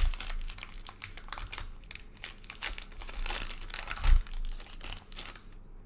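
Baseball card packs and wrappers crinkling and rustling as they are handled, with a dull knock about four seconds in.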